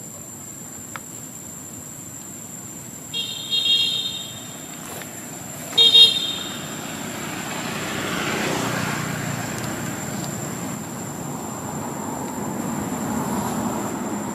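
A vehicle horn toots twice: a few short blasts about three seconds in, then one brief loud blast about six seconds in. Road traffic swells and fades soon after, over a steady high-pitched whine.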